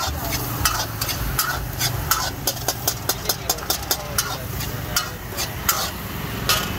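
Long-handled metal ladle scraping and knocking against an iron karahi as masala is stirred and fried in oil, sharp clinks that come in a quick run of about five a second in the middle. A steady low engine hum runs underneath.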